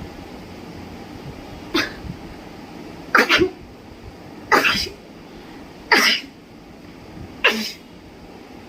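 A woman sneezing five times in a row, about once every one and a half seconds, each sneeze short and sudden.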